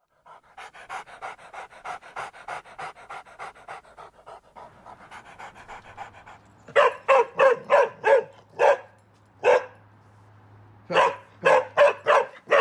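An Australian Cattle Dog mix panting rapidly, about four or five quick breaths a second, for the first six seconds. It then breaks into loud, sharp barks: a quick run of six or seven, a pause, then another quick run near the end.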